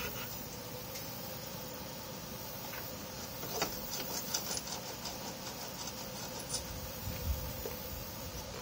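A few sharp metal clicks and taps, mostly in the middle of the stretch, as steel angle-iron pieces are positioned and clamped with locking pliers before welding. They sit over a steady background hiss with a faint hum.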